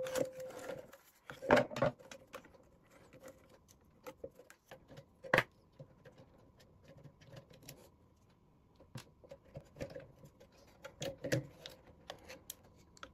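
Hands handling circuit boards and their wiring inside an opened NX Audio Proton RX-5000 power amplifier: scattered light clicks and rustles, with louder knocks of the boards and connectors about one and a half seconds in, about five seconds in, and again near the end.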